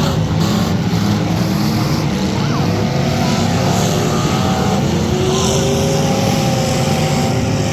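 Several demolition derby cars' engines running and revving together in a steady, loud din, their pitches rising and falling over one another.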